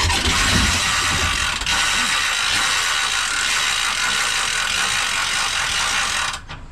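Ratchet mechanism on a boat trailer clicking rapidly and continuously for about six seconds, then stopping abruptly, as a strap or winch is worked before launching the boat.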